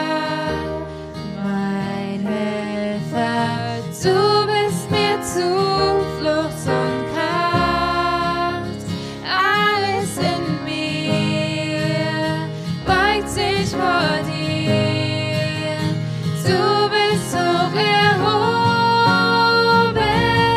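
Worship song with a voice singing over a strummed acoustic guitar, getting louder about four seconds in.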